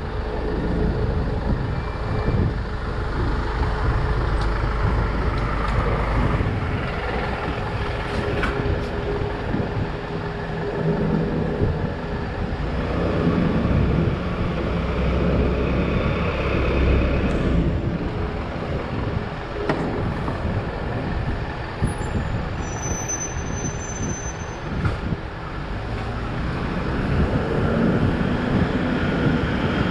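City street traffic: a continuous rumble of passing cars and heavy vehicles such as trucks and buses, their engines running. A short high squeal comes about three-quarters of the way through.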